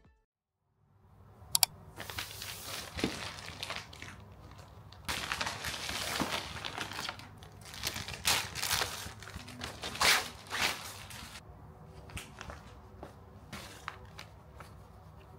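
Plastic packaging crinkling and rustling as it is handled: a clear plastic sleeve and a plastic shopping bag. It starts with a click about a second and a half in, comes in uneven bursts for about ten seconds, then goes on more quietly.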